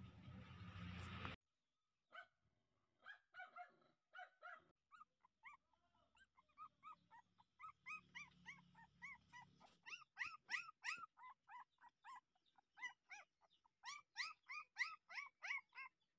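Young puppy whimpering: a run of short, high cries, each rising and falling in pitch, about two to three a second, louder in the second half. A second of low noise at the start cuts off abruptly before the cries begin.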